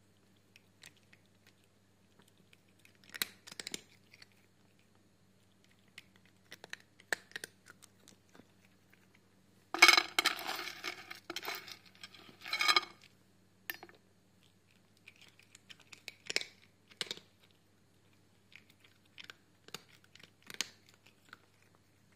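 A cat's mouth and face working right at the microphone: scattered small clicks and crunchy, chewing-like nibbles. About ten seconds in comes a loud scratchy rustle of fur rubbing over the microphone, with a shorter one a few seconds later.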